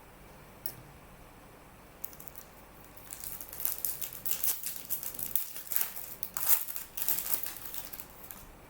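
Foil wrapper of a Panini Prizm trading-card pack crinkling as it is handled and opened. It starts about three seconds in as a dense run of quick, sharp crackles.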